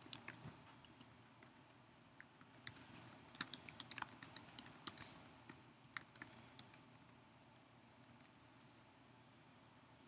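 Faint computer keyboard typing in short runs of keystrokes, thinning out after about seven seconds.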